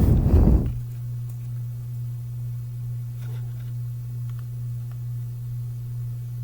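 A steady low hum, with a brief loud low rumble in the first second.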